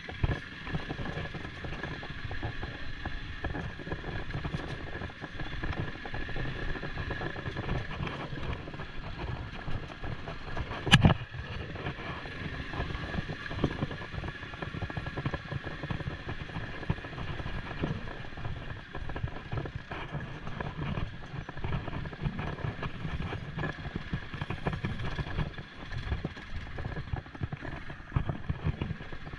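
ATV engine running steadily as the quad is ridden along a lane, with a constant whine over a rough low rumble. A single sharp knock comes about eleven seconds in.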